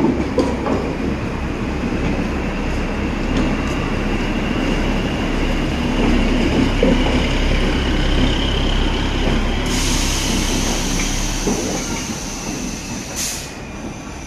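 Indian Railways OHE inspection (tower) car running past on the track: a steady rumble of its engine and wheels on the rails, with a faint high whine. A hiss joins suddenly about ten seconds in and lasts a few seconds.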